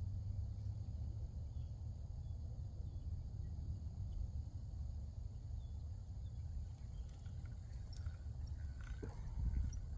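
Outdoor night ambience: a steady low rumble with faint insect chirping, and a few light clicks and taps near the end.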